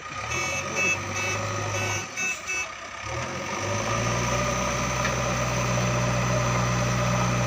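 Diesel engines of a JCB backhoe loader and farm tractors running, with a short run of repeated beeps in the first two and a half seconds. From about three seconds in, one engine grows louder and runs steadily.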